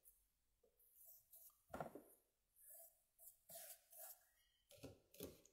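Faint rubbing and swishing of a damp cloth wiped over wet watercolour paper in a series of short strokes, with a soft thump a little under two seconds in.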